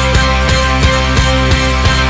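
Instrumental passage of a rock ballad with no singing: a full band plays with a steady beat of about three strokes a second.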